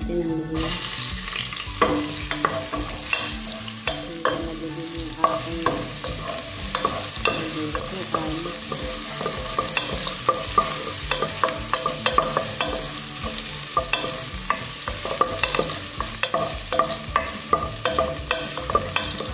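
Julienned ginger sizzling as it hits hot oil in a pot about half a second in, then frying steadily. A wooden spoon stirs through it, with frequent scrapes and taps against the pot.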